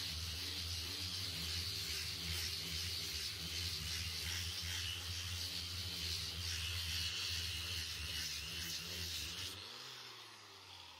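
Angle grinder with a sanding disc running steadily against a wooden board, a high motor whine over a low hum. About nine and a half seconds in the sound dies away as the tool is lifted off and winds down.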